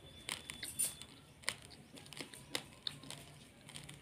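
Raw basmati rice grains being chewed: a string of sharp, irregular crunches.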